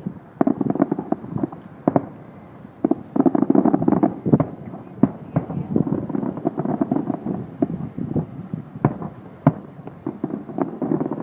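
Fireworks display: waves of dense crackling broken by many single sharp bangs.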